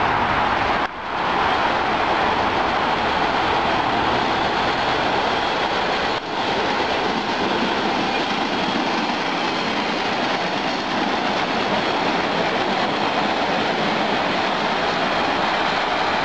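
MBTA Red Line subway train running past on the tracks: a steady, loud rumble of wheels on rail.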